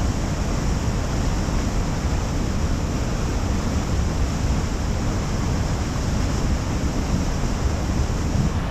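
Steady roar of rushing water, with wind rumbling on the microphone. A high hiss in the sound drops away near the end.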